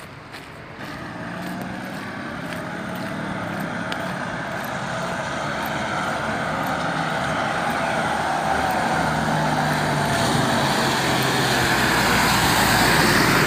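A motor vehicle approaching, its engine and tyre noise growing steadily louder and peaking near the end as it comes close.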